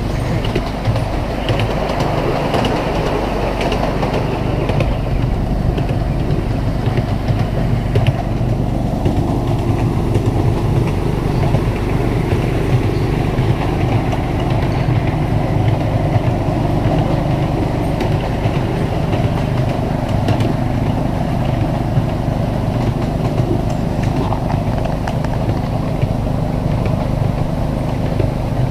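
Miniature railway train running steadily along its track, heard from a passenger car: a continuous low running hum with the wheels and cars rattling on the rails.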